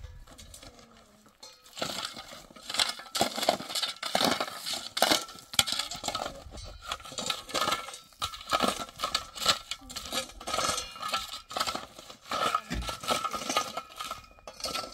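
Dry wheat stalks crunching and rustling in irregular crisp crackles as they are handled, with a quieter lull in the first two seconds.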